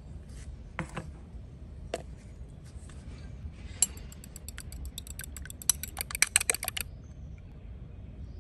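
Light clinks and taps of a utensil against a bowl. A few single clicks come first, then a quick, dense run of clinks starts about four seconds in and lasts about three seconds.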